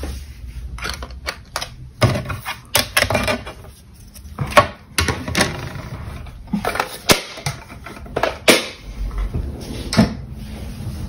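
Irregular sharp clicks and knocks of hard clear acrylic stamp blocks and a plastic stamp case being picked up, set down and put away.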